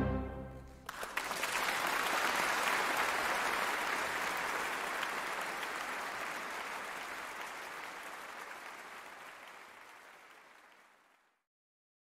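The orchestra's last chord dies away in the first second, then a concert audience breaks into applause, which fades out gradually to silence near the end.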